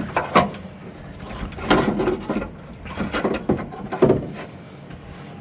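Several knocks and clunks with rustling in between, as tools and parts are moved about and tossed into the back of a car.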